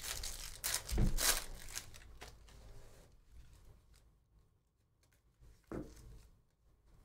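Foil wrapper of a Panini Donruss basketball card pack being torn open and crinkled, loudest about a second in, followed by softer sliding of the cards as the stack is handled, with a brief rustle near the end.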